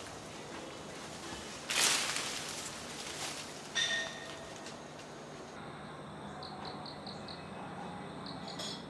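Outdoor ambience with a bird calling in short high repeated notes, about three or four a second, through the second half. Two brief bursts of noise come about 2 s and 4 s in.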